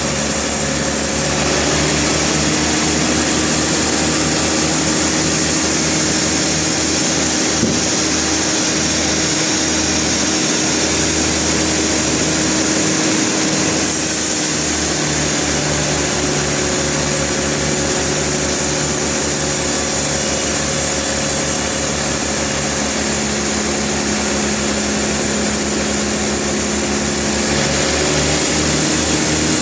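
Sawmill machinery running steadily: an engine's low, even beat under a constant high hiss. The sound shifts slightly in tone about halfway through.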